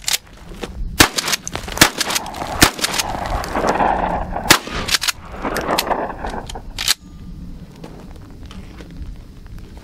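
A 12-gauge pump-action shotgun fired several times in fairly quick succession, each shot a sharp crack, the three loudest in the first three seconds, with more following until about seven seconds in.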